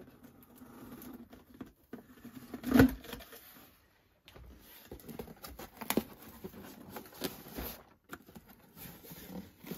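Cardboard carton being handled and opened on a table: rustling and scraping as the top is worked open and the flaps are pulled back. There is a sharp knock about three seconds in and several smaller knocks later.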